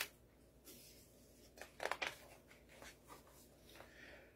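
Faint paper sounds of a picture book's page being turned: a small flick at the start, a brief rustle about two seconds in, and a few softer touches after.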